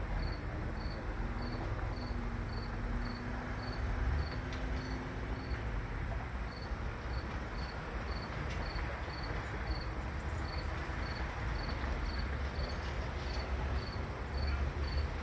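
A cricket chirping in a steady rhythm of short high chirps, about three to four a second, over a steady low background rumble.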